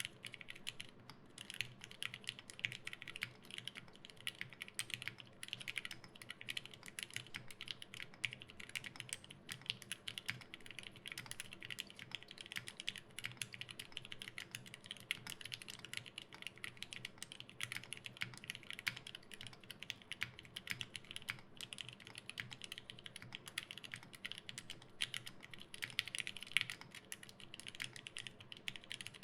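Continuous typing on an LZ Physix custom mechanical keyboard with lubed linear Gateron Yellow-stem switches in Gateron Black housings, an FR4 plate and GMK keycaps: a fast, even stream of keystrokes with no pauses.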